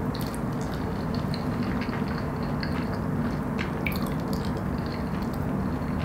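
A person eating Top Ramen noodles close to the microphone: soft wet chewing and slurping with many small clicks, over a steady low hum.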